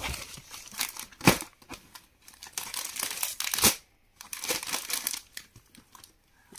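Sarees in their packaging being handled and pulled out of a box, the wrappers crinkling and rustling in irregular bursts, loudest a little over a second in and again past the middle.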